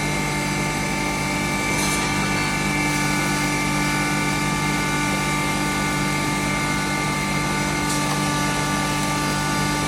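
2 HP turmeric grinding machine running steadily, a constant hum with several high, steady whining tones.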